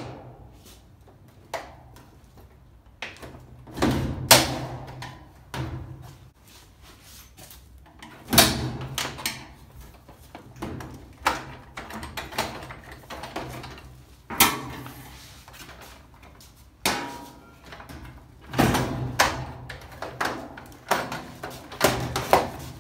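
Irregular plastic clicks, snaps and knocks as the snap locks of a Whirlpool top-load washer's plastic control console are released and the console is worked up off the cabinet.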